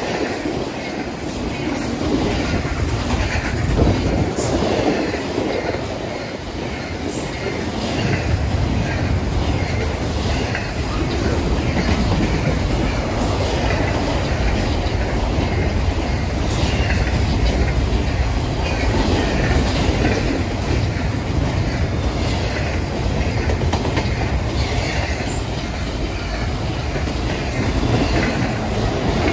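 Long CSX freight train of double-stack intermodal well cars and autorack cars rolling steadily past close by: a continuous rumble of the cars with the clickety-clack of wheels passing over rail joints.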